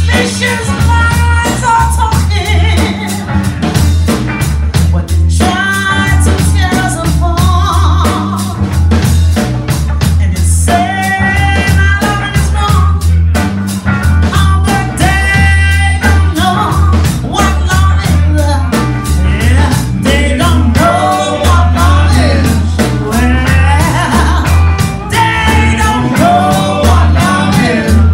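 Live band playing: a woman singing into a microphone over electric guitar, bass guitar and a drum kit keeping a steady beat.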